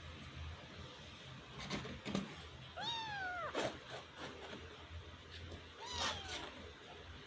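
Kitten meowing twice: a clear call that rises and then falls about three seconds in, and a fainter one about six seconds in. A few short knocks and rustles come between them.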